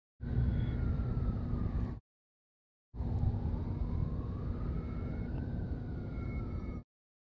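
A siren's slow rising and falling wail over a low rumble, cut off abruptly into dead silence: about two seconds of sound, a gap of nearly a second, then about four seconds more before it cuts out again.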